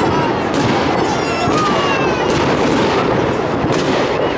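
Fireworks display: aerial shells bursting in quick succession, about two bangs a second, over a steady crackle, with a few thin whistling tones gliding between the bangs.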